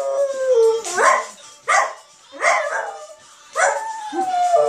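West Highland White Terrier howling along to a song playing: several short wavering howls broken by pauses, then a longer, slowly falling howl near the end.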